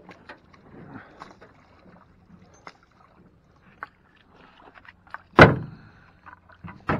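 Wooden oar working in shallow water beside an aluminium boat, giving scattered light knocks and clicks, and one loud knock a little over five seconds in as it strikes the boat's metal side.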